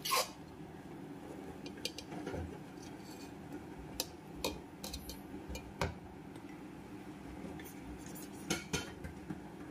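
Steel serving spoon scraping and clinking against the inside of a pressure cooker while scooping out cooked rice, in scattered sharp clinks with a close pair near the end.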